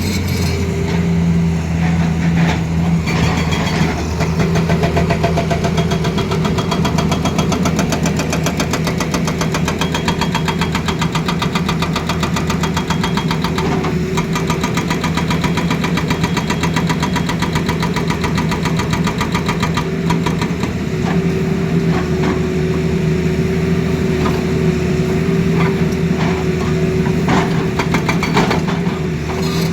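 Tata Hitachi Zaxis excavator's diesel engine running steadily with a low, even hum, and a few sharp knocks now and then.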